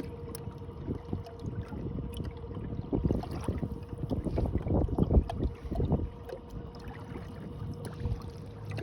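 Electric trolling motor pushing a kayak on its speed-4 setting, a steady thin whine under the low rush of water along the hull, with irregular low thumps of wind and chop in a crosswind.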